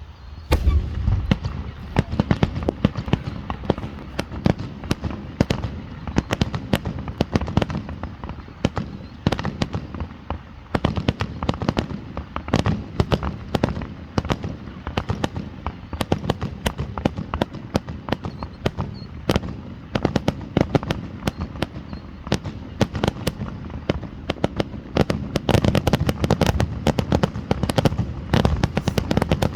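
Fireworks going off in a rapid barrage of sharp cracks and pops, many a second, starting abruptly about half a second in and growing thicker near the end.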